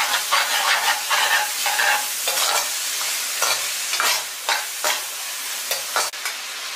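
Minced pork sizzling in oil in a wok while a metal ladle stirs and scrapes through it, with short scrapes and clinks of the ladle against the pan every second or so. The pork is being stir-fried over low heat until it changes colour.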